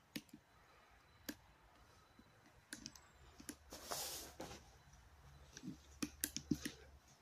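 Footsteps on a debris-strewn floor, heard as scattered faint clicks and crunches, with a brief rustling crunch about four seconds in.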